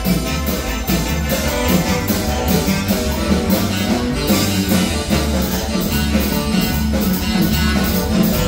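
Marimba band playing dance music with a steady beat over drums and bass.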